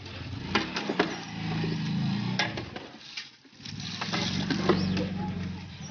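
Water pouring into a large metal pot of hot chicken masala, hissing and sizzling as steam rises, with a metal ladle knocking and scraping against the pot and a low rumble underneath. There is a short break about three seconds in.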